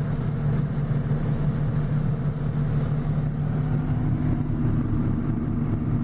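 John Deere 6620 combine running steadily while harvesting corn, a constant low engine hum with a second, slightly higher hum joining about three and a half seconds in.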